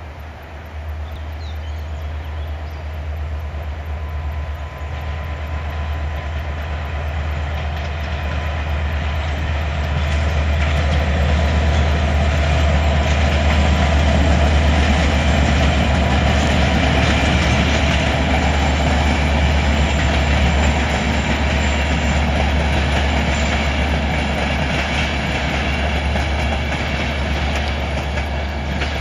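Diesel-hauled passenger train passing: the locomotive's engine drone builds to a peak about halfway through and then eases, with the clatter of the coaches' wheels on the rails as they go by.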